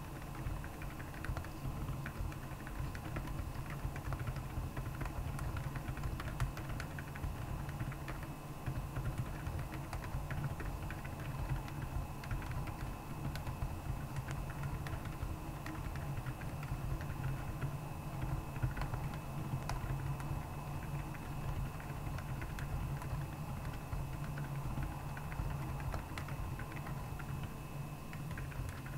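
Continuous typing on a Royal Kludge R75 mechanical keyboard with Akko Penguin silent tactile switches: a dense, steady run of damped keystrokes over a steady low hum.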